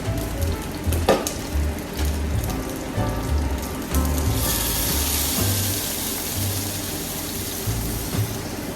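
Background music with a steady bass beat, a sharp knock about a second in, and from about halfway a loud steady hiss of kitchen noise that runs almost to the end.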